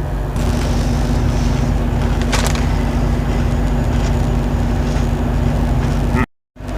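Steady low machine hum with a steady tone joining it about half a second in; the sound cuts out briefly near the end.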